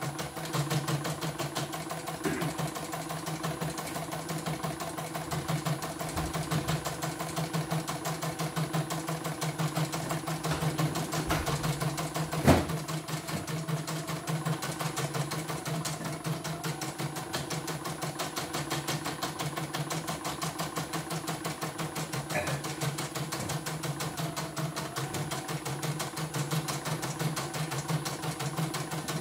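CNY computerized embroidery machine running with its covers off, stitching a design: a steady run of rapid, even needle strokes, with one sharp click about halfway through. It is a test stitch-out after its sensors and thread-tension set were replaced, and it runs without stopping.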